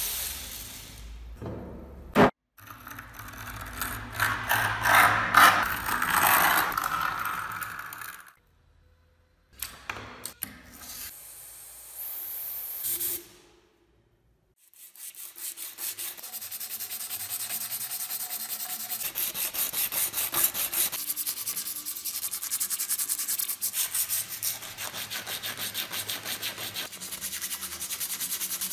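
Sandpaper being rubbed by hand over the brass fuel tank of an antique blowtorch, in quick back-and-forth scratchy strokes. It comes in several short bursts with brief silent gaps and a sharp click a couple of seconds in, then settles into a steady run of even strokes about halfway through.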